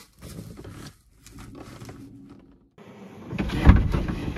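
Handling noise of someone moving about inside a kei van: rustling and soft knocks, louder about three and a half seconds in, with a low thump.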